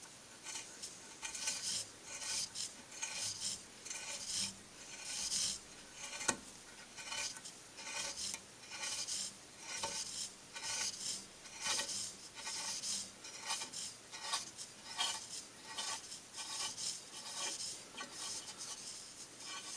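Hand scraping or rasping on metal in repeated irregular strokes, about one and a half a second, with one sharp click about six seconds in.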